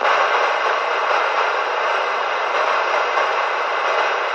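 Galaxy DX 949 radio's speaker giving a loud, steady rush of static that cuts in suddenly, with no voice on it, while its meter needle shows a signal coming in.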